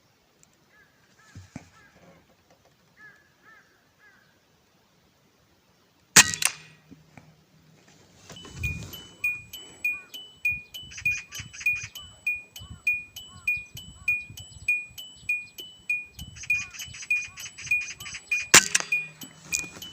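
Two sharp air rifle shots, about twelve seconds apart. Between and around them runs a rhythmic ticking, about two a second, with short repeating chime-like tones, from about eight seconds in.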